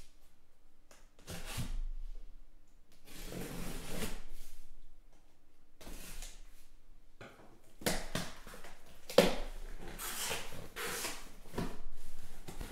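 Cardboard shipping case being cut open and its flaps pulled back by hand: a run of short scraping, rustling cardboard sounds every second or two, with a sharp knock about nine seconds in.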